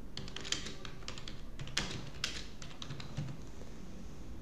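Typing on a computer keyboard: irregular, scattered keystrokes.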